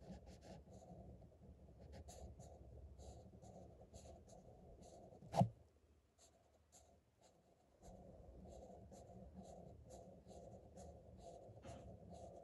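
Felt-tip marker scratching on paper in quick repeated strokes while colouring in. A single sharp knock about five seconds in is the loudest sound, followed by a couple of seconds with hardly any strokes.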